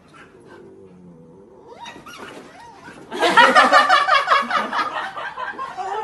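Husky puppy yowling in rough play: faint whines at first, then about three seconds in a loud, fast-warbling growly yowl that lasts a couple of seconds.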